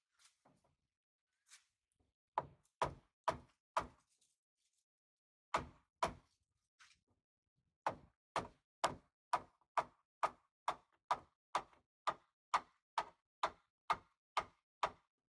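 Hammer blows on a wooden block held against the stuck sliding door of a 1977 VW Type 2 bus, tapping the door loose. Sharp knocks: a few scattered at first, then a steady run of about two blows a second.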